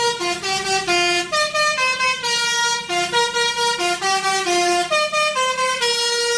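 A multi-tone 'telolet' bus horn playing a quick tune of short stepped notes, then stopping abruptly.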